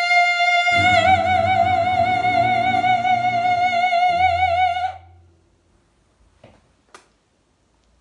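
A woman's operatic voice holding a long high final note with wide vibrato over an orchestral backing track, which closes on a low final chord; both stop together about five seconds in, followed by two faint clicks.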